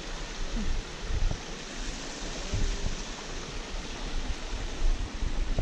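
Wind buffeting the microphone: a steady rushing hiss with irregular low rumbling gusts, the strongest about a second in, a little before three seconds, and near the end.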